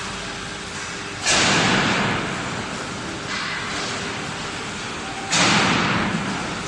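Automatic bus body frame welding line running with a steady background noise. Two sudden, loud bursts of hissing noise, about four seconds apart, each fade away over a second or so.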